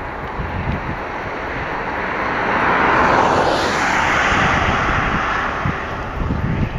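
Twin General Electric GE90 turbofan engines of a Boeing 777-300ER at takeoff power during the takeoff roll: a loud, steady jet rush that grows to its loudest about halfway through, then eases slightly.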